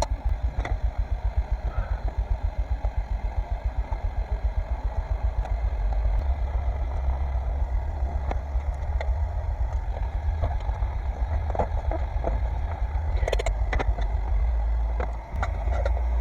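Pot of water boiling hard on a camp stove: a low rumble that pulses rapidly for about six seconds, then runs steadily, with a brief dip near the end.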